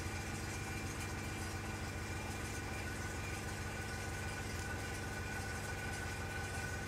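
Airbrush compressor running with a steady, even hum.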